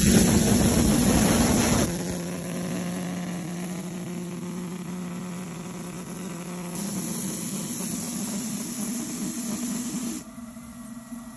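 Steam-atomized diesel oil burner firing in the firebox of a small live-steam locomotive: a steady hiss with a low hum under it. It is loudest for the first two seconds, then settles lower, and drops sharply about ten seconds in.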